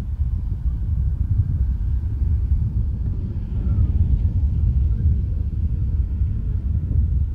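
Steady low rumble of wind buffeting the microphone, flickering irregularly without any clear pitch.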